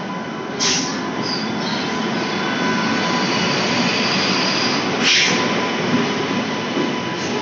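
WAP-7 electric locomotive and its coaches rolling in along the platform as the train arrives, a steady rumble of wheels on rail. Two sharp, high-pitched bursts rise out of it, about a second in and again about five seconds in.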